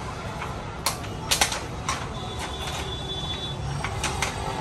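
Handling noise: a few sharp clicks and taps about a second in and again near the end, over a steady low background rumble.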